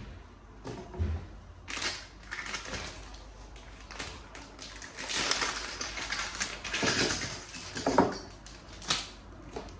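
Crinkling and rustling of a plastic instrument sterilisation pouch being handled and opened by gloved hands, with a few sharp clicks, the loudest about eight seconds in.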